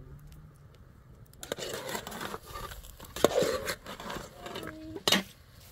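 A metal spoon scraping and stirring food in a metal pan over a wood fire, starting about a second and a half in, with a few sharp clinks of spoon against pan.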